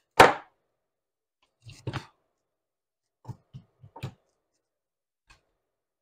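Handling noise at a soldering bench: one sharp knock just after the start, then a scattering of lighter clicks and taps as tools and wired parts are picked up and set down.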